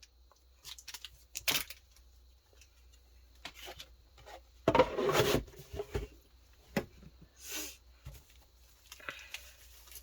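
Trading-card packaging being torn and handled: scattered short rustles and crinkles, with one louder tear lasting about half a second, about five seconds in.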